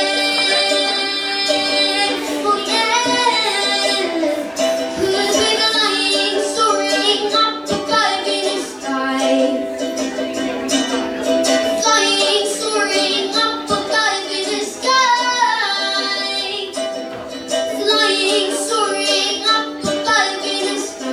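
A woman singing a slow song live, accompanied by a plucked string instrument, her voice sliding between long held notes in phrases with short breaks.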